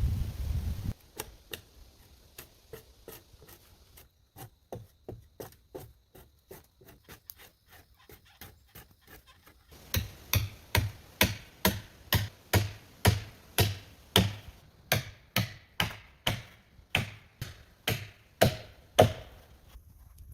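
Steady, rhythmic blows of a hand tool, about two strikes a second, each a sharp knock with a low thud: faint at first, much louder from about ten seconds in. A brief wind-like rumble comes before the strikes begin.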